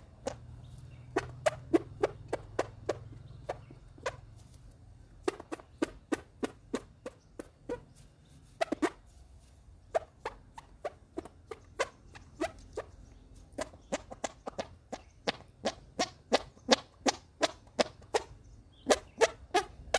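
Armpit noises: a hand pumped against the armpit making a long run of short pops, about two to three a second, with a short break partway through.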